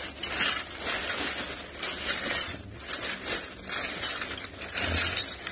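Stainless steel kitchen utensils (whisks, ladles, spoons, forks) clinking and clattering against each other as hands rummage through a bagful of them, with the thin plastic bag crinkling throughout.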